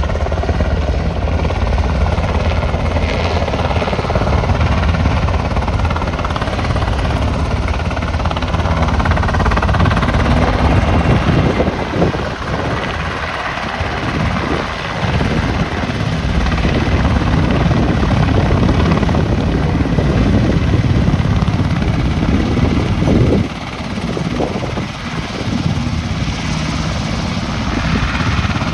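UH-60 Black Hawk helicopters flying low and setting down on the grass: the main rotors beating and the twin turboshaft engines giving a steady high whine, loud throughout, with brief dips about twelve and twenty-three seconds in.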